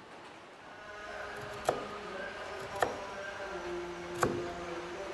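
Soft background music with held notes, starting about a second in, with three sharp clicks or knocks spread across it.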